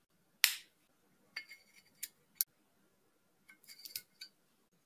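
Seal being peeled off the neck of a whiskey bottle before uncorking: a sharp click about half a second in, then a few light clicks and a cluster of small crinkling ticks near the end.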